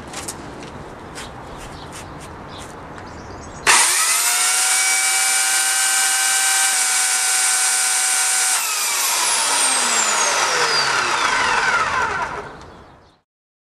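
Oregon corded electric chainsaw test run with no load: after a few handling clicks its motor starts suddenly and whines at a steady high speed for about five seconds. Then it winds down, its pitch falling for about four seconds before it stops.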